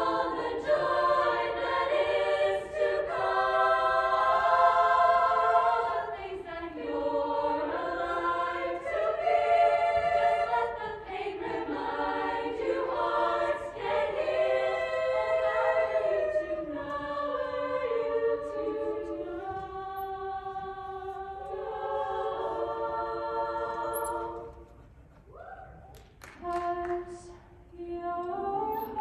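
Show choir singing in harmony, holding long chords that shift from one to the next. About 25 seconds in the singing drops away to a few quieter notes, then the full choir comes back in near the end.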